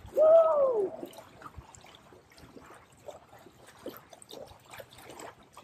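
A person's loud yell, about a second long, rising then falling in pitch, followed by faint sloshing and lapping of water as a man wades into a lake.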